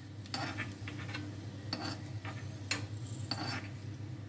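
A spoon scraping and tapping against a nonstick kadai and a bowl while fried cashews and raisins are scooped out of the ghee: a handful of separate sharp clicks over a faint steady low hum.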